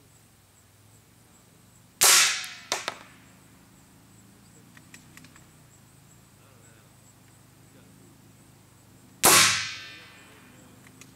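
Two suppressed .22LR rifle shots from a Savage FV-SR with a Spectre II suppressor, about seven seconds apart, each a sharp crack with a tail fading over about a second. A couple of short clicks follow the first shot.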